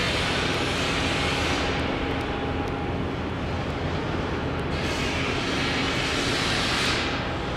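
Road traffic running steadily with a low rumble. Two vehicles pass with a whoosh, one fading out about two seconds in and another swelling and fading near the end.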